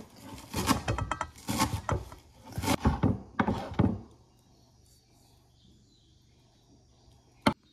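Kitchen knife chopping chives on a wooden cutting board: a quick, uneven run of knocks that stops about four seconds in. A single sharp click near the end.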